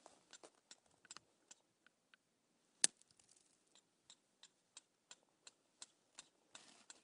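Flint knapping: a hammer stone striking a piece of flint, a series of sharp clicks about two a second with one much louder strike about three seconds in.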